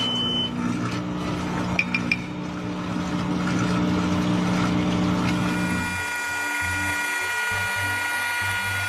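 Coffee machine running with a steady mechanical hum, a few clicks about two seconds in; the hum stops about six seconds in.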